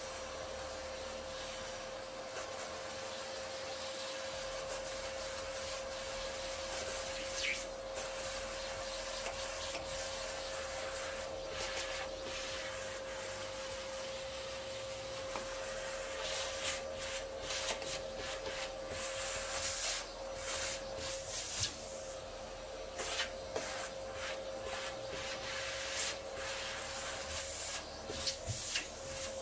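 Canister vacuum cleaner running with a steady whine while its hose nozzle sucks up sawdust from a carpeted board. Frequent clicks and rubbing come through in the second half as the nozzle works over the carpet.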